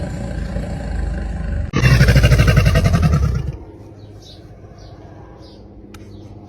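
A deep, rumbling growl gives way suddenly to a loud, rapidly pulsing roar from a large animal that lasts about two seconds. The roar breaks off, leaving a much quieter background with faint high chirps.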